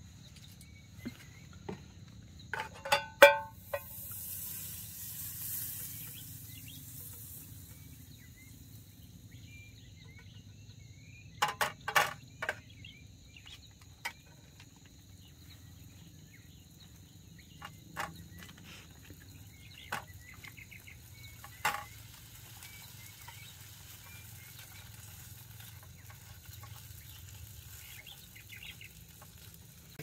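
Camp cooking of sausages in a pan: clinks and knocks of utensils against the pan, a hiss of sizzling from about four seconds in, then quieter frying with more occasional knocks. A steady low hum and faint insect-like tones run underneath.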